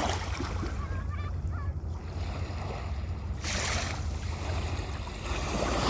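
Ocean waves washing onto the shore over a steady low rumble of surf: one wash about three and a half seconds in, and another building near the end.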